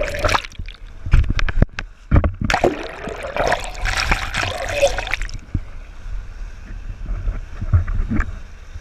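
Water splashing with several sharp knocks, over a steady low rumble of wind on the microphone; the splashing is heaviest for a few seconds in the middle and then dies down.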